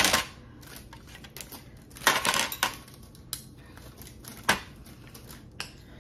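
Metal ice cream scoop and spoon clinking and scraping against a glass bowl: a sharp clink at the start, a short run of knocks and scrapes about two seconds in, then single clinks spaced a second or so apart.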